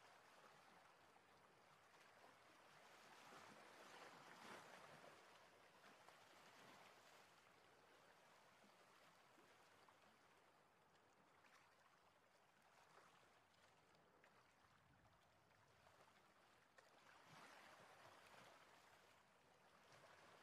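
Near silence: a faint, even background hiss that swells slightly twice.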